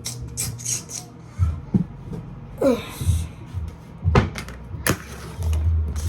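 Knocks and clicks of dishes and serving utensils as food is dished onto plates, with a low pulsing bass underneath.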